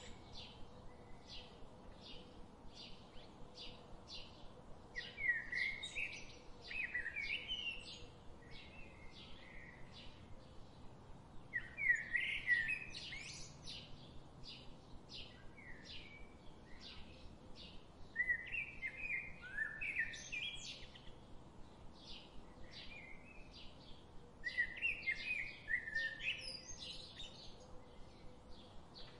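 Forest birdsong: a bird sings short warbling phrases of quick gliding notes every several seconds, over a steady run of short high ticks about twice a second.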